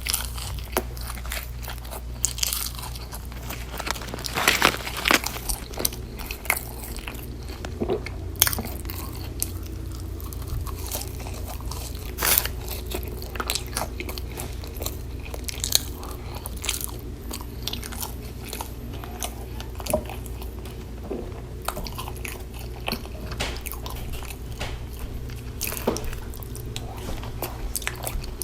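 Close-miked mouth sounds of a person biting and chewing In-N-Out fast food, with many irregular sharp clicks and smacks over a steady low hum.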